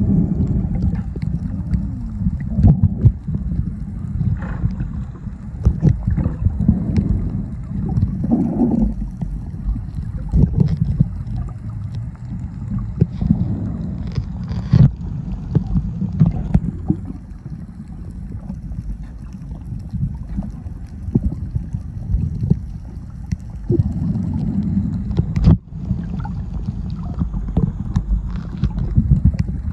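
Muffled underwater noise picked up by a phone held below the surface: a steady low rumble with frequent small knocks and bubbling.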